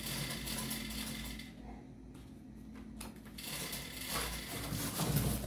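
Handling noise: a plastic bag and a paper manual rustling as they are picked up and set down on a table top, with small knocks. The rustling comes and goes, quieter in the middle.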